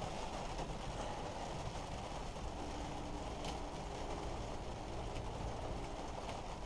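A few faint light clicks from a small screwdriver and wires being worked into a hedge trimmer's housing, over a steady low background noise.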